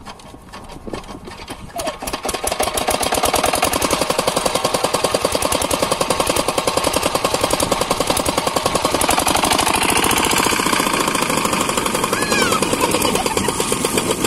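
Single-cylinder 8 hp diesel engine of an irrigation pump set, hand-cranked and catching about two seconds in, then running with a fast, even knock. In the last few seconds a rush of water joins as water sprays out around the pump.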